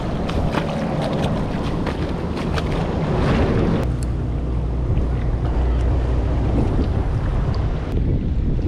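Wind buffeting a chest-mounted action camera's microphone: a steady, heavy rumble, with water moving at the shoreline. A few light clicks and taps come in the first few seconds.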